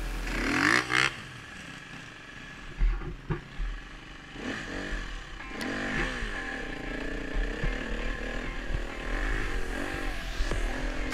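KTM enduro motorcycle engine revving up and down as the bike climbs a rough forest trail, with a few sharp knocks along the way.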